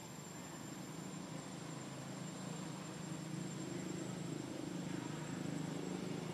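Outdoor background noise: a low hum that grows slowly louder, under a steady thin high-pitched whine.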